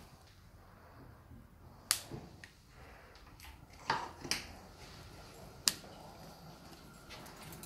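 A handful of sharp clicks and taps, about five spread through, over faint room tone.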